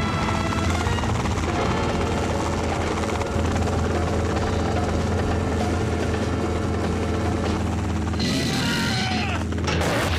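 Cartoon helicopter sound effect: a steady, rapid rotor chop, joined about eight seconds in by a rush of noise as water pours down.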